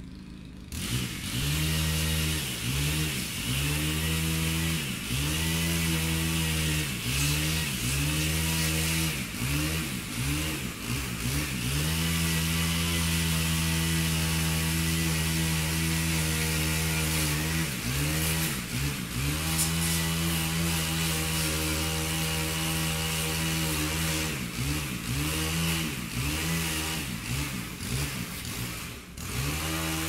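Chainsaw running, starting about a second in, its pitch repeatedly dipping and climbing back up, with steadier stretches in between.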